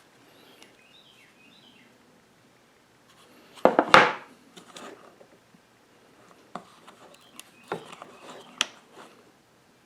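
Hands handling small parts and wiring of a lathe's speed controller box: light rubbing and rustling, a short loud clatter of knocks about four seconds in, and a few sharp single clicks near the end.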